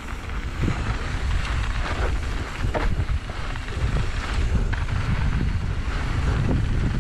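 Wind buffeting the microphone of a downhill mountain bike riding fast down a dirt jump trail, with scattered short knocks and rattles. It gets louder over the first second or two as the bike picks up speed.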